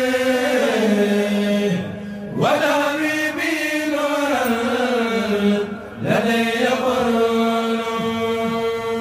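Mouride kourel (religious choir) chanting a khassida in Arabic with long held notes. The chant breaks briefly twice, about two and six seconds in, and each time glides up into the next phrase.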